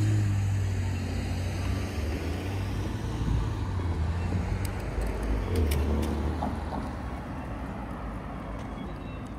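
A motor vehicle's engine running close by, a low steady hum that is loudest at the start, drops in pitch about halfway through and eases off over the last few seconds, over general street noise.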